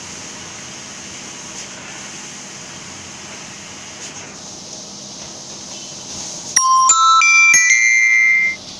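A short electronic chime melody of several bright notes, lasting about two seconds, starting sharply about two-thirds of the way in over a steady faint hum.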